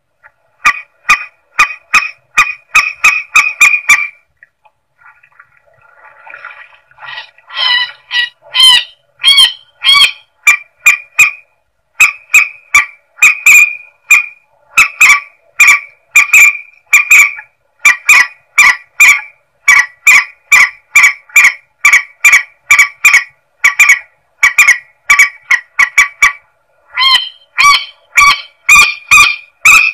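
Recorded calls of the mandar sawah, a rice-paddy rail: short, loud, honking notes repeated in fast series of about two to three a second, with a short break about four seconds in. It is a lure call for attracting the bird.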